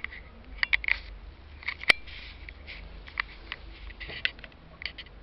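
Handling noise as the camera is moved over a spiral sketchbook: a scatter of sharp clicks and short scratchy rustles at uneven intervals.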